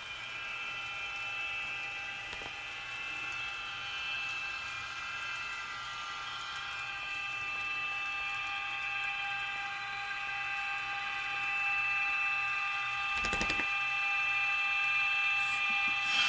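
Sound decoder of an Atlas N scale NJ Transit ALP-45DP model locomotive playing its electric-mode running sound through its small speaker: a steady electric whine made of several held tones, whose mix shifts about halfway through. A short knock comes near the end.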